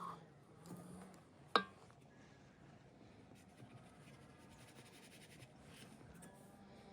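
One sharp knock about one and a half seconds in, over faint low background noise with a few small ticks.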